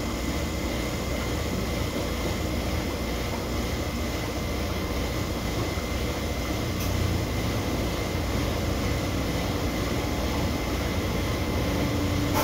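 Steady hum and hiss of aquarium equipment: an air pump feeding a sponge filter in the tank, running without a break.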